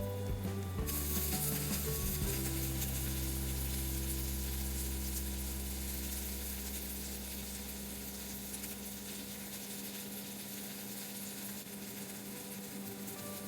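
Food sizzling in hot oil in a frying pan, starting abruptly about a second in and carrying on steadily while slowly easing off.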